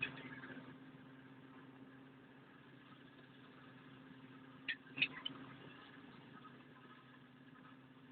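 Steady low machine hum, like an engine running, with a few sharp knocks: one at the start and a close group of three about five seconds in.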